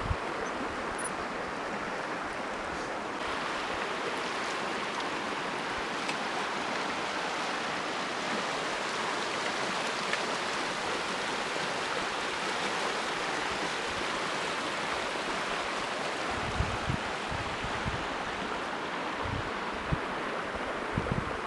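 A mountain creek rushing steadily, an even hiss of flowing water that grows slightly fuller about three seconds in. A few brief low thumps come near the end.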